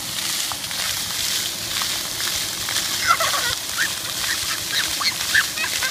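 Splash-pad fountain jets spraying, a steady hiss of falling water. From about three seconds in, a run of short, high chirping squeals comes a couple of times a second over it.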